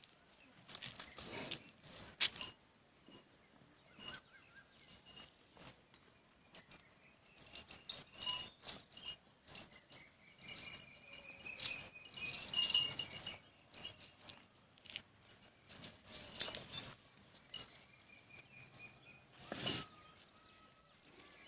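Metal tethering chains rattling and clinking in short, irregular bursts as a water buffalo is chained to a wooden stake.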